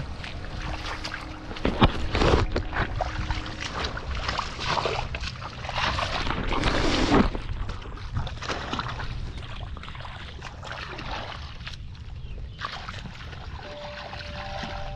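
Shallow muddy water splashing and sloshing in irregular bursts, loudest about two seconds in and again around six to seven seconds in.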